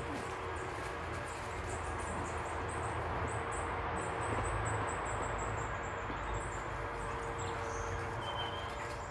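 Steady outdoor woodland noise with a small bird singing a run of quick, high, thin notes that lasts a few seconds in the middle, and another short high note near the end.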